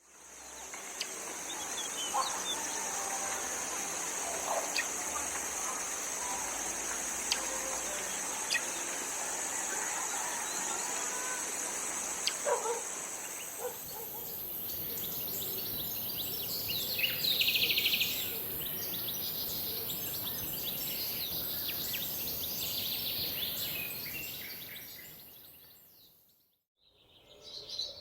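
Birds chirping now and then over a steady, high-pitched outdoor drone, which shifts higher about halfway through. The sound fades away near the end, then more bird chirps come in.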